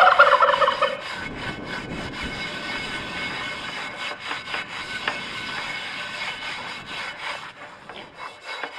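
Gloved hand scrubbing softened, baked-on crud off a lye-soaked cast iron skillet: a scratchy rubbing in repeated strokes, with a short pitched squeal in the first second.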